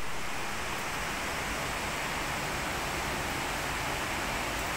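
Heavy rain falling steadily, an even dense hiss with no breaks.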